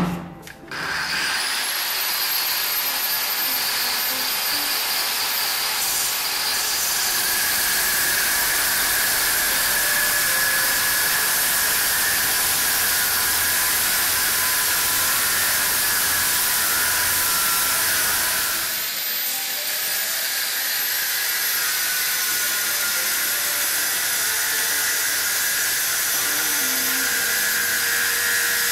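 Angle grinder spinning up about a second in, then running steadily on metal with a high whine over a harsh grinding noise, easing off briefly about two-thirds of the way through. A sharp knock comes at the very start.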